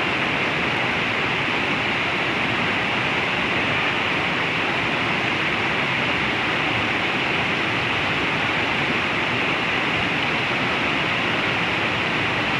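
River rapids: a steady rush of white water pouring between boulders.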